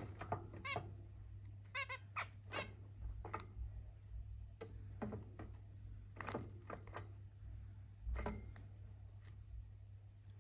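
Zebra finches calling: short, sharp calls and brief quick runs of notes, about fifteen scattered irregularly, over a steady low hum.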